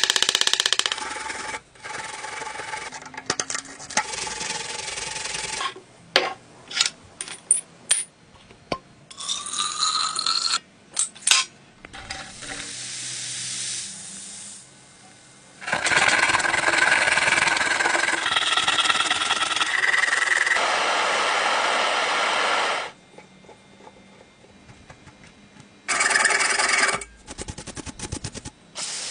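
A run of short workshop sounds cut together: power tools running in loud bursts, one spinning up with a rising whine about ten seconds in, between sharp clicks and knocks.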